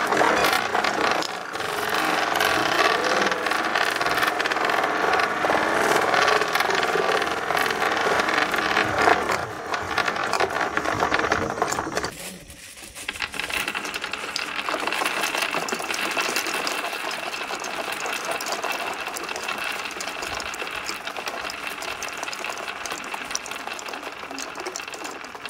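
Many small marbles and plastic balls clattering and rattling down a wooden ramp drilled with holes, a dense continuous rattle of little knocks. It drops out briefly about halfway, then goes on as a lighter, steadier rattle.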